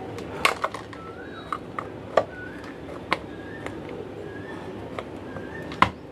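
Scattered sharp clicks and knocks of plastic camping lantern housing parts being handled and pressed into place, the loudest about half a second in and again near the end.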